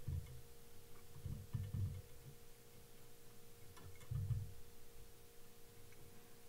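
Faint handling sounds of a rotary fly-tying vise being turned while material is wound onto the hook: a few soft low thumps and light clicks over a steady faint hum.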